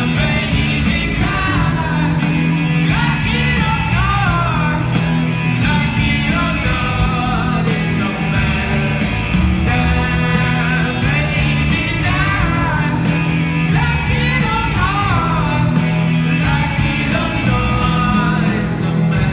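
Rock band playing live and loud through an arena sound system, electric guitars and drums under a singer's voice, heard from within the audience.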